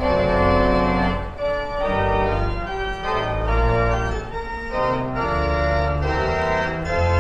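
Huge pipe organ playing full, sustained chords that shift every second or so over deep bass pedal notes.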